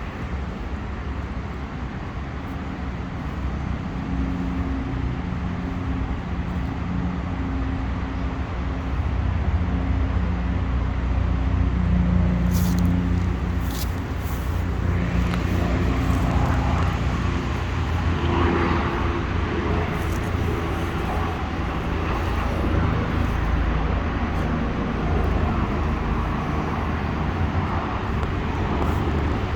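Street traffic: a motor vehicle engine running with a steady low rumble, a little louder around the middle.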